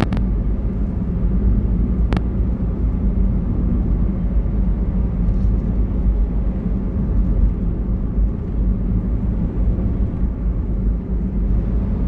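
Steady low rumble of a moving car's engine and tyres on the road, heard from inside the cabin. Two short clicks come about two seconds apart near the start.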